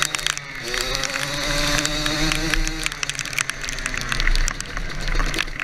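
ATV engine running, its note climbing over the first couple of seconds, with many quick rattles and clicks.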